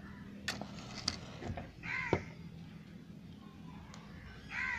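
A crow cawing twice, about two seconds in and again near the end, over faint clicks from a matchbox and match being handled before the first caw.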